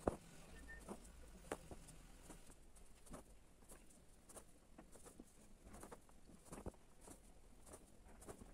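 Faint, irregular clicks and soft scratches of an embroidery needle piercing fabric held taut in a wooden hoop, with silk thread drawn through at each stitch. The sharpest click comes right at the start.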